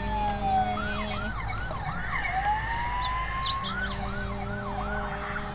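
Electronic toy siren sound effect: a slow falling wail, then quick rising whoops in two bursts of about four, over a steady electronic tone.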